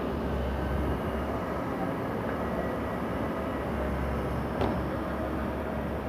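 Bobcat E55 compact excavator's diesel engine running steadily while its arm is worked, with a single knock about four and a half seconds in.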